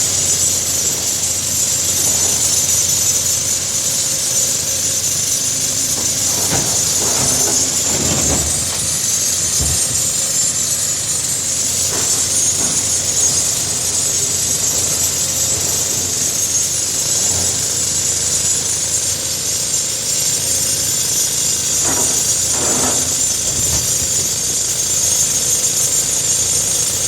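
Case excavator's diesel engine running steadily under a strong steady hiss, with a few brief changes in its note as the machine works.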